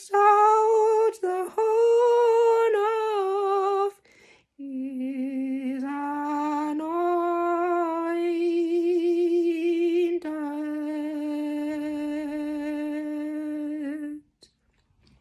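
A young woman's voice singing a slow, wordless tune in long held notes, with a short break about four seconds in, after which the notes are lower.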